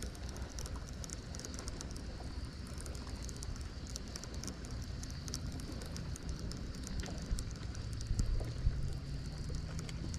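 Wind on the microphone and small waves lapping against a boat hull, with a fine crackle throughout. About eight seconds in, a low hum rises slightly in pitch, with a few low bumps.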